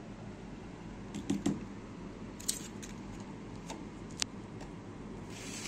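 Light clicks and taps of a utensil against dishes as a piece of chicken is served from a bowl onto a plate, with one sharper click a little past four seconds in and a short rustle near the end.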